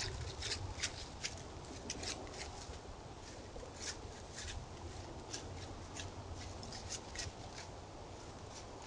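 A deer stepping through dry leaf litter: irregular crackles, thickest in the first two or three seconds and sparser after, over a steady low hum.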